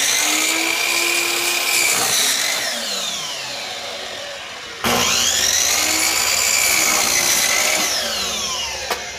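Chicago Electric sliding compound miter saw running and cutting through wooden cabinet-door frame stock. The motor's whine holds at speed, then falls as the blade winds down. It starts again suddenly about five seconds in, holds, and winds down again near the end.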